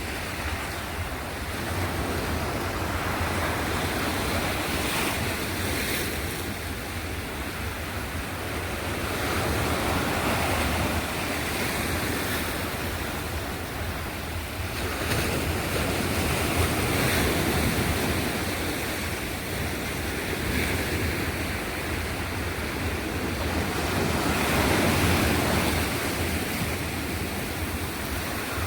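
Sea waves breaking and washing ashore, the surf swelling and ebbing every few seconds, with wind rumbling on the microphone underneath.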